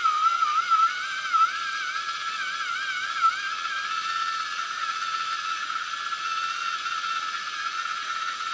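A loud whistling tone with overtones, wavering up and down in pitch for the first few seconds, then holding one steady pitch before cutting off at the end.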